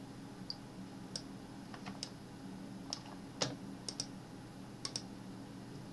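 Computer mouse clicks and keystrokes: about a dozen short, irregular clicks over a faint steady hum.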